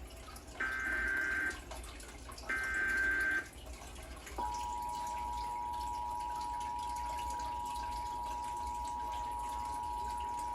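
Emergency Alert System broadcast opening a Required Monthly Test: the last two bursts of the screechy digital SAME header, each just under a second long. About four seconds in, the two-tone EAS attention signal begins and holds steady.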